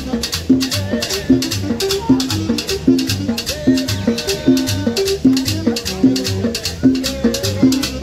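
Live street band playing an upbeat dance tune: a repeating bass line with drums, and hand percussion rattling an even beat several times a second.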